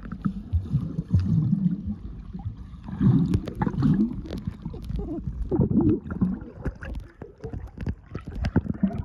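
Muffled underwater bubbling and churning from swimmers moving through a swimming pool, heard with the microphone under water; it comes in repeated surges.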